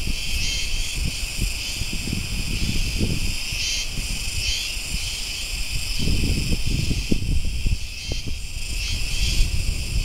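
Cicadas singing in a steady high-pitched chorus that swells every few seconds, with wind gusting against the microphone underneath.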